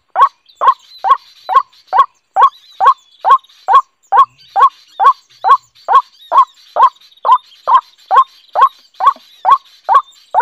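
White-breasted waterhen call played back as a lure from a small speaker: one short croak repeated very evenly, about twice a second, at the same loudness every time.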